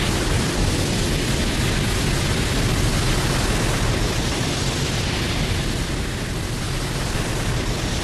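A Godzilla film sound effect: a sustained, even rush of noise with a deep rumble underneath, like fire or a long blast, with no roar or pitched tone in it.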